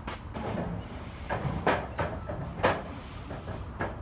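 Wooden fence posts being loaded onto a metal flatbed cart: several sharp wooden clunks as the posts are set down and slid against each other.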